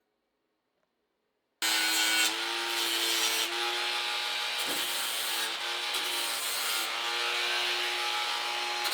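Power tool grinding or sanding sheet metal: a steady whine over a loud hiss. It starts abruptly about a second and a half in, after dead silence.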